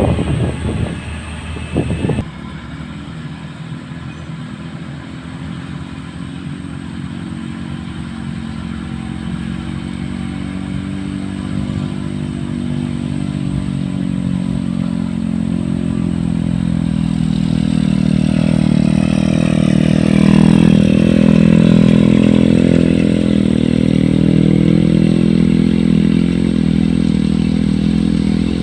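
Motor grader's diesel engine running steadily and growing louder over about twenty seconds, then holding, with a few clattering knocks in the first two seconds.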